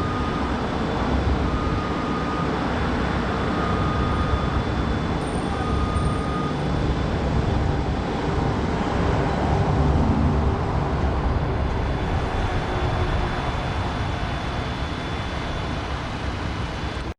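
Heavy diesel construction machinery running steadily, with a backup alarm beeping four times, about one long beep every two seconds, during the first seven seconds.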